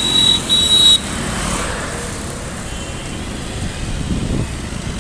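Road traffic passing close by: cars and motorcycles going past one after another, swelling as each passes. A brief high-pitched horn-like tone sounds in the first second.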